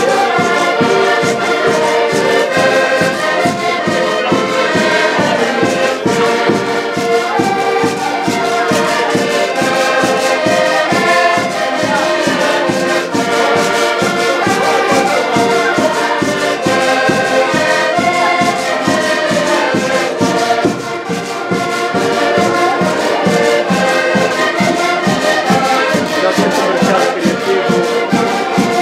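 Several diatonic button accordions (Portuguese concertinas) playing a tune together, with sustained chords over a steady beat.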